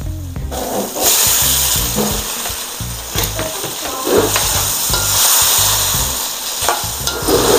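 Raw chicken wings going into a boiling masala sauce in a stainless-steel wok, the liquid sizzling and bubbling from about a second in, with a metal spatula stirring and scraping against the wok near the end.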